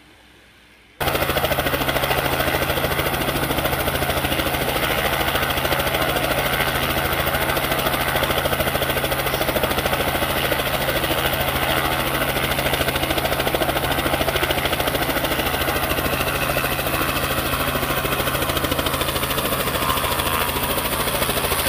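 A light aircraft's piston engine idling steadily with an even, fast throb, cutting in abruptly about a second in.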